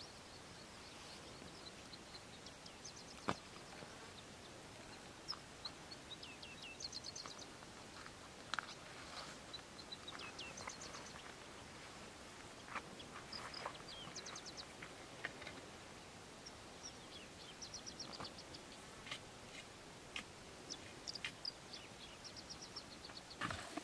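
Small birds chirping in short, quick trilled series over a faint steady background hiss, with a single sharp click about three seconds in.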